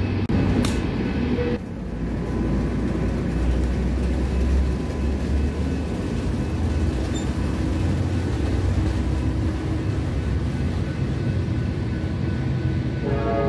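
Amtrak San Joaquins bilevel passenger cars rolling past and pulling away from the platform: a steady low rumble of wheels on rail and a running train. Just before the end the train's horn begins to sound.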